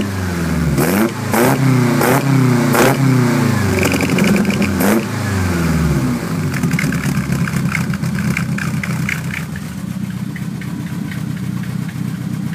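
Exhaust of a Megasquirt-managed Ford Zetec four-cylinder engine being blipped several times in quick succession, with sharp cracks on some of the blips. About six seconds in it settles to a steady idle.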